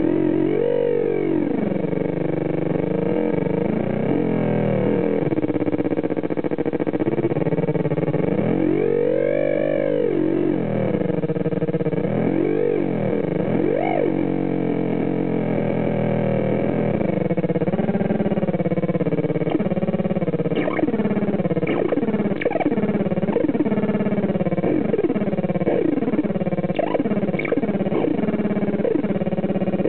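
Homemade 4093 quad NAND Schmitt-trigger oscillator synth in a jar sounding a continuous electronic drone whose pitch swoops up and down in slow arcs. From about twenty seconds in it breaks into quick chirping pitch sweeps, several a second.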